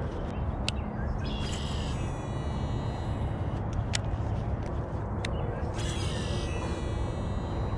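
Outdoor ambience with a steady low rumble, several sharp clicks, and two short harsh calls about a second and a half in and again about six seconds in.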